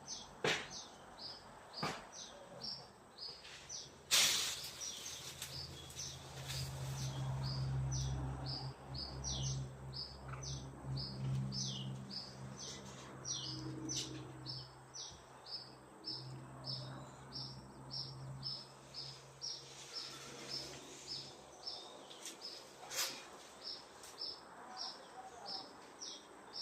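A bird chirping over and over, with short high chirps about twice a second. A sharp click about four seconds in is followed by a low steady hum, which fades out about two-thirds of the way through.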